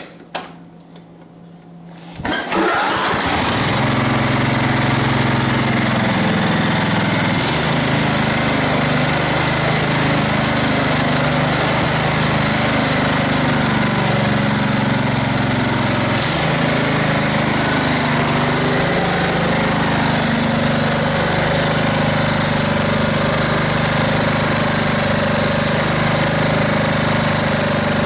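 A riding mower's Kohler 16 hp OHV engine starts about two seconds in, then runs steady at high speed without surging. Its throttle is held open by a tightened stop set screw, which cures the RPM surging at the cost of low idle.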